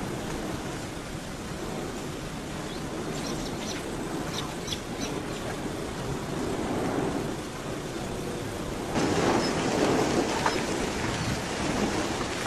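Steady rushing noise of a lava flow burning its way into a car. It turns suddenly louder and harsher about nine seconds in.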